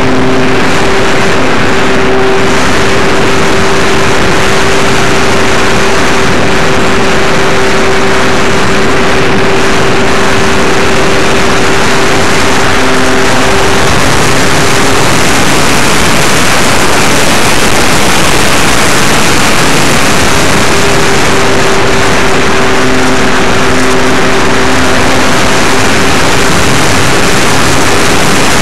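Wind and airflow rushing over an RC plane's onboard camera microphone at close to full loudness, with the steady hum of the Apprentice S15e's electric motor and propeller under it. The motor tone drops out about halfway through and returns in the last third.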